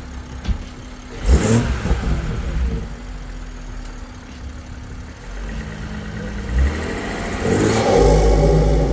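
BMW 340i's B58 turbocharged inline-six, fitted with an aftermarket CTS cold-air intake, idling and then revved twice: a short sharp blip a little over a second in, and a longer rev that builds and peaks near the end.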